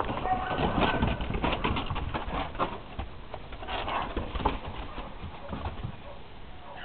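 Dogs' claws and paws clattering and scuffling on wooden deck boards as two dogs play, busiest in the first three seconds and thinning out after.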